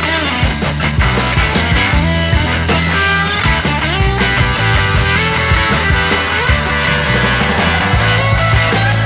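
Rock music with guitar, bass and a steady drum beat.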